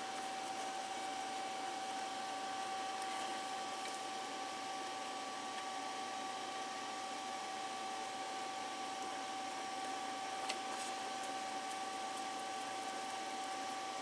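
A small electric fan or blower motor running steadily: an even whirring hiss with a constant high whine over it. A faint tick about ten and a half seconds in.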